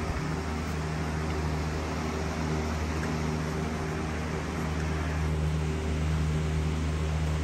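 A steady low machine hum with a constant drone, like a running fan or air-conditioning unit, unchanging throughout.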